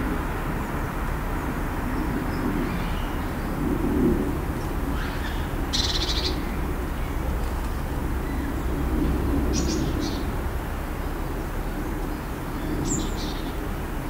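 Steady low rumble of urban traffic noise, with a few short high bird chirps about six, ten and thirteen seconds in.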